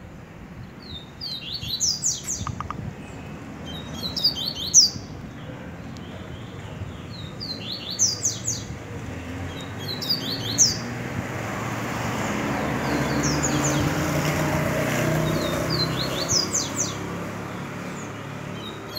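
Canary singing short phrases of quick, falling high notes, repeated about every two to three seconds. A low rushing noise swells and fades in the middle.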